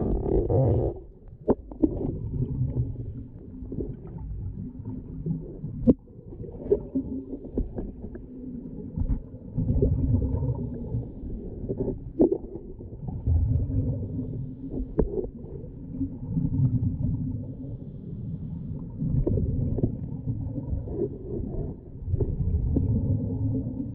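Underwater sound of scuba divers breathing through their regulators: muffled low rumbles of exhaled bubbles that come and go about every three seconds, with scattered sharp clicks and knocks.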